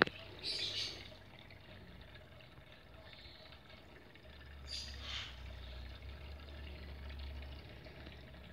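Water moving in a home aquarium, a steady faint trickle with two short splashy bursts, about half a second in and about five seconds in. A low hum comes in about four seconds in.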